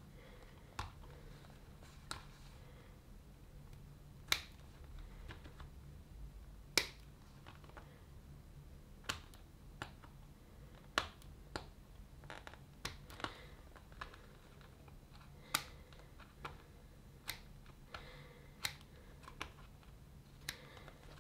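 Scissors snipping vinyl to cut out an old inflation valve: a series of sharp, irregular snips, about one a second, some louder than others.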